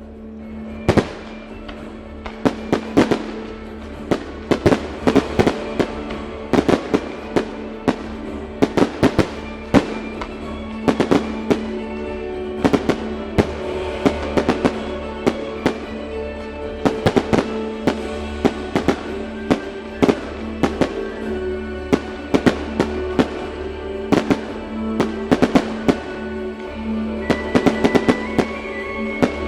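Fireworks show: many sharp firework shell bursts, several a second at times in quick runs, over Celtic-themed music from the show's sound system with a steady held drone.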